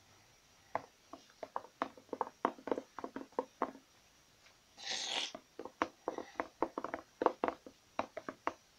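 Spoon clacking quickly against a plastic bowl while stirring pancake batter, about four or five taps a second, with a short scraping rush about five seconds in.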